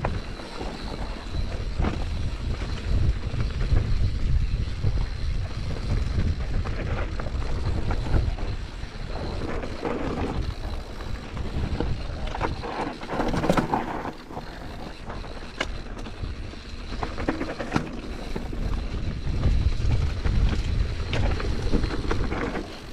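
Wind buffeting the microphone of a camera on a mountain bike riding rough singletrack, with scattered rattles and knocks from the bike over the trail.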